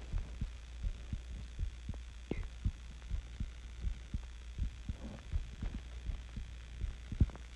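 A person's heartbeat recorded close up: a steady rhythm of low lub-dub thumps over a steady low hum.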